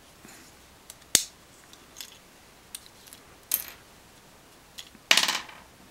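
Small plastic clicks and scrapes from a digital tyre tread depth gauge being opened by hand to take out its button-cell battery: a sharp click about a second in, a brief scrape, then a short rattle near the end, the loudest sound.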